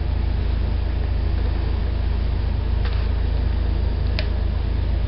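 A steady low hum of background noise, with two light clicks about three and four seconds in as coaster brake hub parts are handled.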